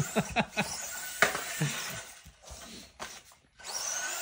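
Short quick bursts of laughter, then a sharp knock and a light clatter.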